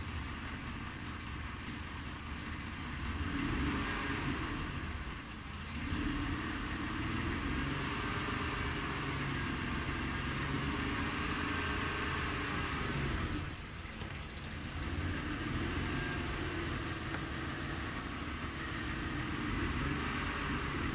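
Mitsubishi Pajero IV engine idling warm at operating temperature, with the knock at idle that the owner is recording. The sound drops briefly about five and about fourteen seconds in.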